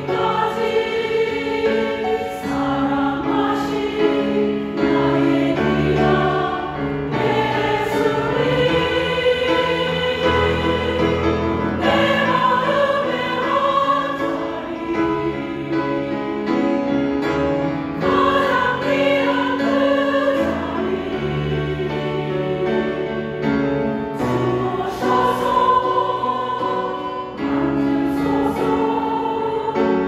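A women's church choir singing a Korean sacred anthem in several parts with grand piano accompaniment, in long held phrases.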